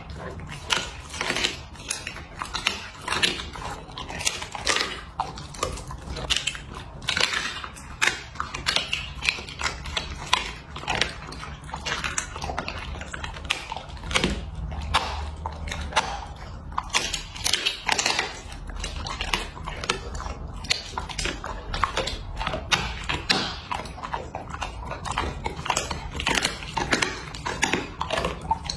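Husky-type dog chewing and crunching raw duck collarbones, close to a microphone: a steady run of wet bites and sharp irregular cracks.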